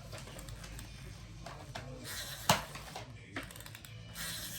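A sharp knock about two and a half seconds in, with a few faint clicks before and after it.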